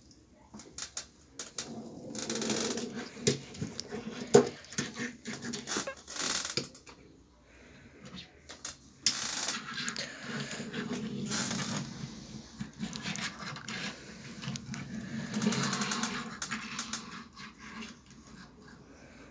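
Small die-cast Hot Wheels toy cars handled and rolled along a wooden desk: sharp clicks and taps of metal and plastic on wood, with several stretches of rolling rattle from the little plastic wheels.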